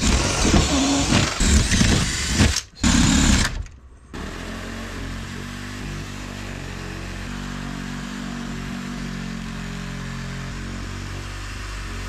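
Corded reciprocating saw cutting through the exterior wall sheathing. For the first few seconds it is loud and rough, its pitch sagging and rising under load, with two brief breaks. From about four seconds in it runs steadier and quieter.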